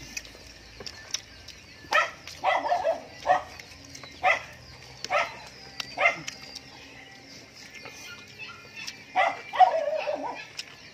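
A dog barking, a series of short barks spaced about a second apart, then a quick cluster of barks near the end.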